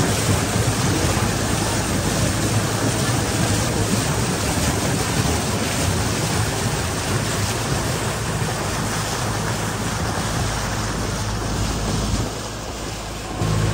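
Wind rushing over the microphone with a steady low engine hum underneath, as heard while riding in a moving vehicle; it eases off briefly near the end.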